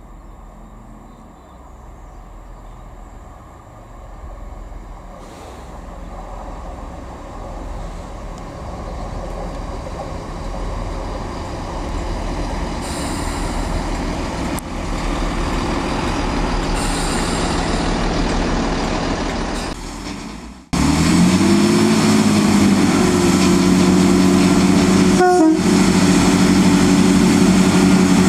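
GWR Class 165 diesel multiple unit approaching and running in, its rumble growing steadily louder for about twenty seconds. After a sudden break, its underfloor diesel engine and transmission run loud and close with a steady two-note whine that first bends upward.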